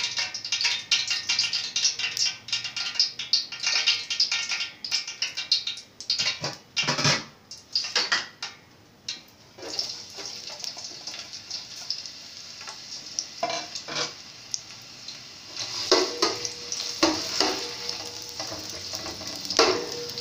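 Hot ghee crackling and spitting in a large aluminium pot, turning to a steady sizzle about halfway through once sliced onions go in. Near the end a metal spoon knocks and scrapes against the pot as the onions are stirred.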